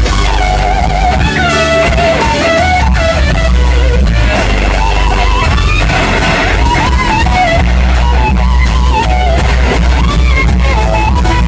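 Live rock band playing loudly, a lead electric guitar line with wavering, bending notes over a heavy, steady bass and drums.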